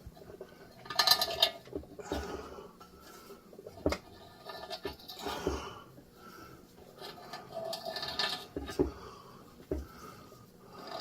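Irregular clinking and scraping of hand tools on metal as a surface on the engine block is worked flat.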